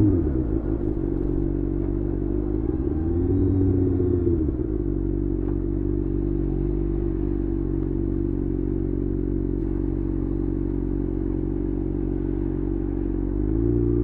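Kawasaki ZX-6R inline-four through a LeoVince aftermarket exhaust. The revs drop as the throttle closes, blip up and back down about three to four seconds in, then hold a steady low note before rising again near the end.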